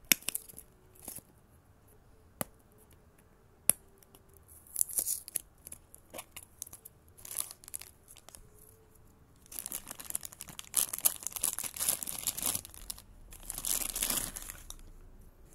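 A few sharp clicks from the plastic toy capsule being handled, then a clear plastic bag crinkling in bursts. The crinkling grows dense and loudest over the last third, with a final spell of tearing as the bag is ripped open near the end.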